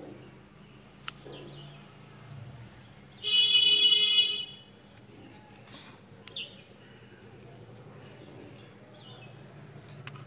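Steel scissors cutting a Scotch-Brite scouring pad, a few short sharp snips, with brief birds' chirps. About three seconds in, a loud steady pitched tone, like a horn, sounds for just over a second.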